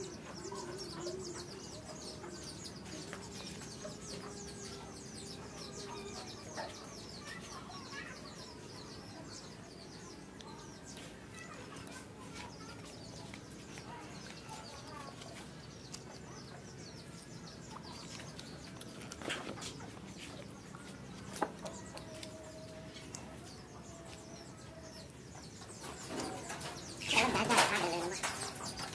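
Chickens clucking in the background, with a louder burst of sound near the end.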